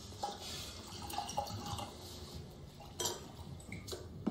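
Red wine being poured from a bottle into a stemmed wine glass, then a couple of light knocks about three and four seconds in.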